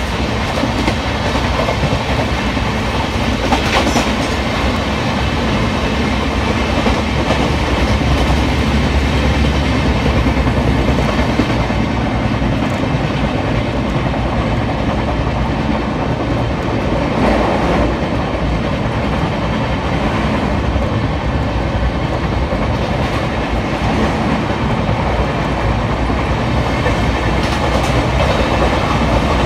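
Indian Railways passenger trains running at speed on parallel tracks, heard from an open carriage window: a steady rumble and clatter of wheels over rail joints, with a few sharper clacks.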